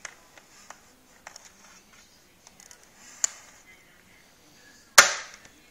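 Handling noise of a Fatshark FPV helmet and its receiver, connectors and cables: scattered light clicks and taps, with one sharp, loud knock about five seconds in that dies away quickly.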